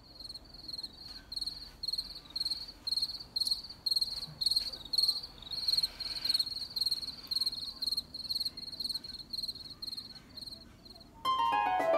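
Cricket chirping at night: high, even chirps repeating about two to three times a second. The chirping stops near the end as music comes in.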